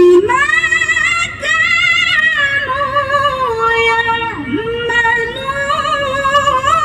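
A woman's voice in melodic Quran recitation (tilawah), singing one long melismatic phrase of held, wavering notes with quick trills and pitch glides, beginning just after a short breath at the start.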